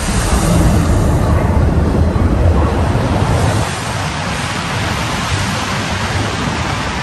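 Simulator ride soundtrack of rushing ocean surf and wind with a heavy low rumble, swelling during a low swoop over the waves and easing off about three and a half seconds in.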